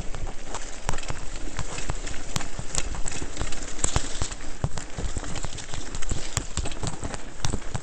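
Mountain bike rattling and clattering as it descends rough singletrack over rocks and roots: a dense, irregular run of knocks and jolts over a steady rushing noise.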